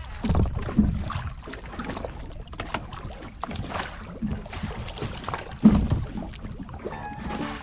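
Water sloshing and splashing around a small fishing boat, with irregular knocks and handling noises. One louder thump comes a little before six seconds in.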